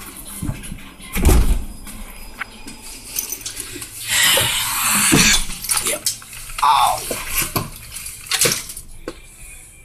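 Rattling and clattering knocks inside a city bus, with a burst of hiss about four seconds in that lasts just over a second.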